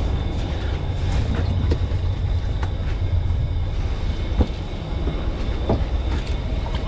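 Steady low rumble of wind and water around a fishing boat at sea, with a few short sharp ticks and taps about one and a half, two and a half, four and a half and five and a half seconds in.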